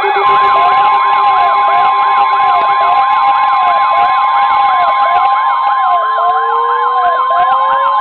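Several weather alert radios alarming at once for a severe thunderstorm warning: the steady NOAA Weather Radio warning alarm tone holds under a fast repeating warble and a slower wailing alarm, and a further tone slowly rises in pitch near the end.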